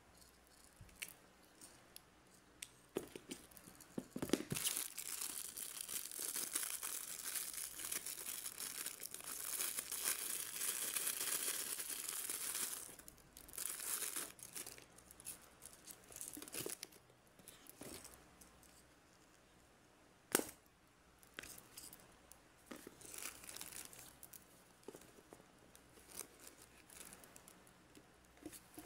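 Clear plastic packaging crinkling and rustling as it is handled and opened: a long run of continuous crinkling from about four to thirteen seconds in, then scattered short rustles and a few sharp clicks.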